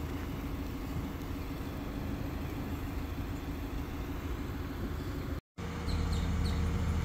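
Mobile crane's diesel engine running at a steady idle hum, broken by a short dropout about five and a half seconds in, after which the same hum carries on slightly louder.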